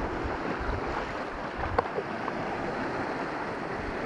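Sea waves breaking and washing over a rocky shore, with wind rumbling on the microphone. A single sharp click sounds a little before the middle, with two fainter ticks just after.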